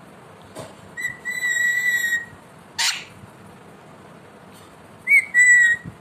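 Pet ringneck parakeet whistling: a long steady whistle about a second in, a short harsh squawk near the middle, and a second, shorter whistle near the end.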